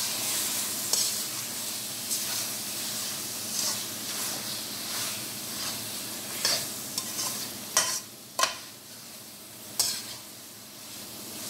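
Paneer cubes, capsicum and chilli masala frying and sizzling in a metal kadhai while a metal slotted spatula stirs them, scraping the pan again and again. A few sharper knocks of the spatula on the pan come in the second half.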